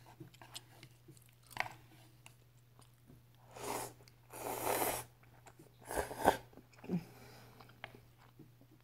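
A person slurping ramen noodles off chopsticks: two long slurps about three and a half and four and a half seconds in, and a shorter one around six seconds, with soft wet chewing clicks between.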